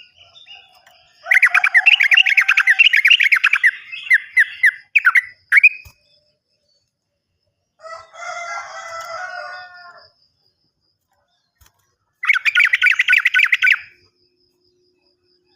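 Sooty-headed bulbul (trucukan) song in fast chattering bursts: a long run of rapid repeated notes, then a shorter run near the end. Between them comes a harsher, lower call lasting about two seconds.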